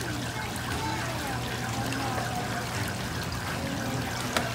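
Water running and trickling in a children's water play table, with one sharp tap near the end.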